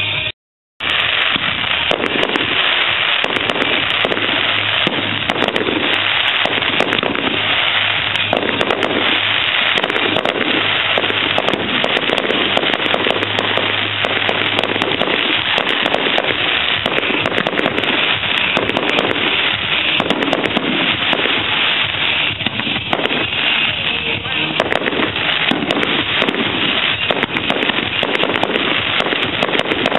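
Firework display going off: a dense, continuous barrage of crackling and banging shells, many bursts a second, with no let-up.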